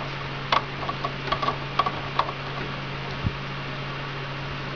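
Light metallic clicks as a nut is fitted by hand onto the pulley end of a Unimat SL lathe's spindle: about half a dozen clicks in the first two and a half seconds, then one dull knock, over a steady low hum.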